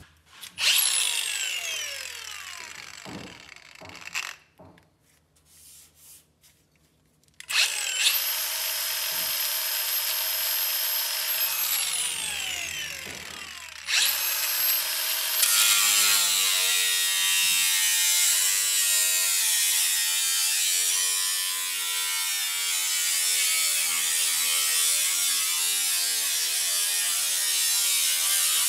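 Cordless angle grinder spinning up with a high whine and coasting down, starting and stopping a few times. About halfway through it settles into steady grinding against the rusted steel bodywork of a Porsche 914, throwing sparks.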